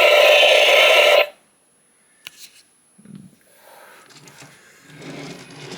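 Remote-control Godzilla toy's heat-ray breath sound effect playing loudly through its speaker, a harsh, steady rush that cuts off suddenly about a second in. It is followed by faint clicks and handling noise.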